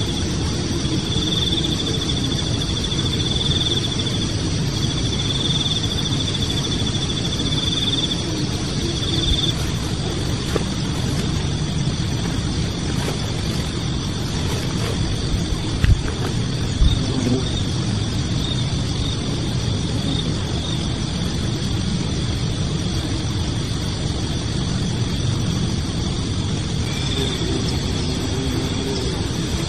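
Insects trilling steadily in long stretches over a constant low rumble of outdoor ambience, with two soft knocks near the middle.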